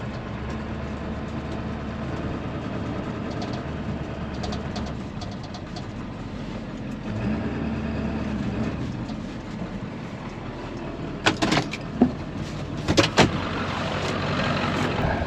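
A vehicle engine running steadily, with a handful of sharp knocks or clanks in quick succession about eleven to thirteen seconds in.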